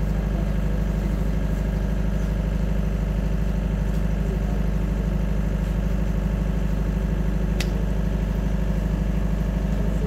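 An engine idling steadily, a low even hum with a fast, regular pulse.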